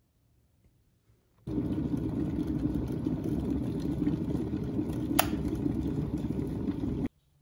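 Water at a full boil in a glass electric kettle, a steady low bubbling rush that starts suddenly about a second and a half in, with one sharp click about five seconds in as the kettle switches itself off; the sound cuts off abruptly near the end.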